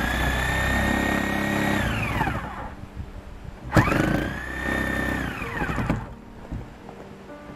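Handheld power tool motor run twice, each time for about two seconds. Each run spins up to a steady high whine and then winds down as the trigger is released, while working at a door that is jammed shut.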